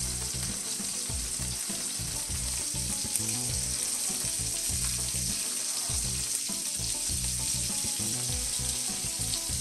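Wagyu beef patty topped with melted cheese sizzling steadily in grapeseed oil in a frying pan.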